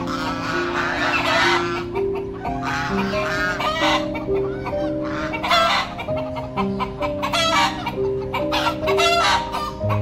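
Chickens clucking and calling again and again, over instrumental background music with long held notes.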